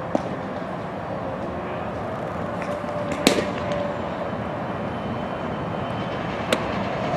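A pitched fastball smacks into a catcher's leather mitt about three seconds in, one sharp pop over steady background noise. Near the end a softer snap follows as the return throw lands in the pitcher's glove.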